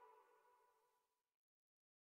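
Near silence: the faint tail of the background music dies away early on, leaving dead silence.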